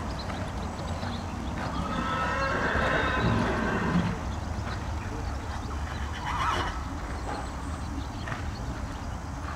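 A horse whinnies in one long call, about two seconds in, over the hoofbeats of a horse cantering on an arena's sand.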